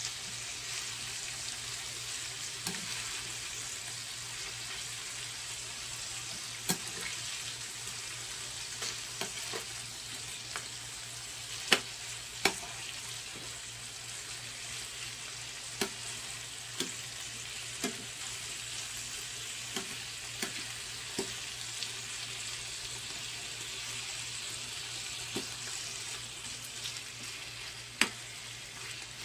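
Pork belly slices sizzling in a frying pan with garlic and shallots, a steady hiss of searing fat. Now and then a spatula clicks and knocks sharply against the pan as the pieces are turned.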